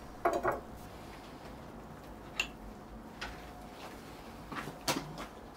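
A few light knocks and clicks over a faint steady background: two close together just after the start, a single one about halfway, and a double knock near the end.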